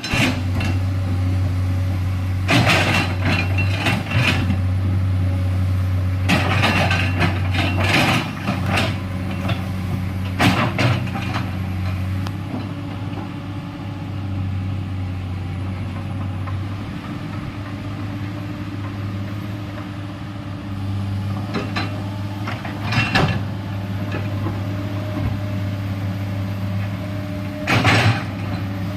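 Komatsu PC210LC hydraulic excavator's diesel engine running steadily with a low hum. Short bursts of clanking and scraping from the working machine come about five times.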